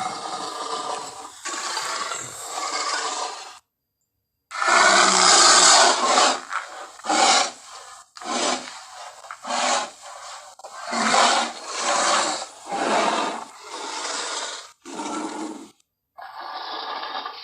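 Gorilla sound effects: a harsh vocal clip, a dead-silent cut, then a long loud call followed by a run of short calls about a second apart, each cut cleanly from the next.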